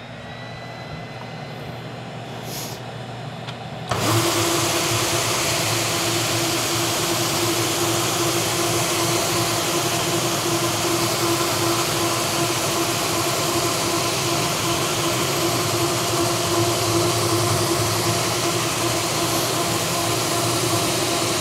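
Bona PowerDrive hybrid floor buffer sanding a hickory panel with 40-grit paper. It runs fairly quietly with a rising whine at first, then about four seconds in jumps to a much louder, steady sanding noise with a constant hum.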